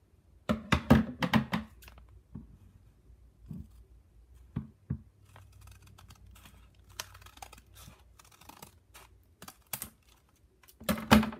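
Handmade paper blind bags being handled and cut open with scissors: scattered clicks and paper rustles, with a quick run of snips near the end.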